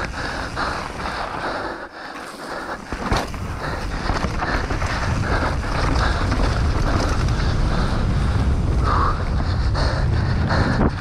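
Mountain bike descending a rough enduro trail at speed: wind buffeting the onboard microphone over tyre roar and the rattle and knock of the bike over rocks and roots, easing briefly about two seconds in and then steady and louder.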